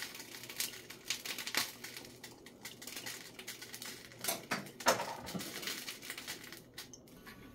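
Scattered clicks, taps and light clatter of kitchen utensils against a frying pan during cooking preparation.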